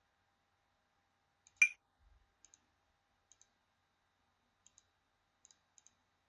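Computer mouse button clicks: one sharp, louder click about one and a half seconds in, then five faint double clicks, press and release, spaced about a second apart or less.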